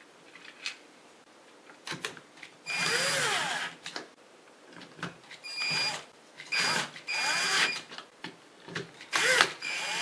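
Cordless drill/driver running in short bursts as it drives Phillips screws into a deadbolt's interior mounting plate: one longer run about three seconds in, then four shorter runs, the motor pitch rising and falling with the load.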